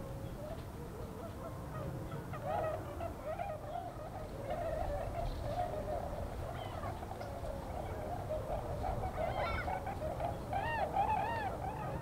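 A flock of swans calling: many short, overlapping honking calls that rise and fall in pitch, growing busier near the end, over a steady low rumble.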